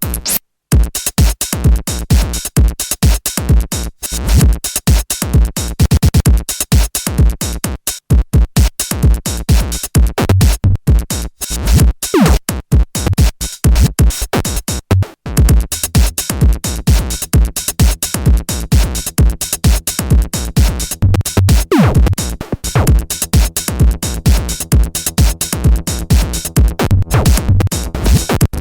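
Electronic dance music with a fast, steady drum-machine beat and heavy bass, with a couple of falling synth sweeps.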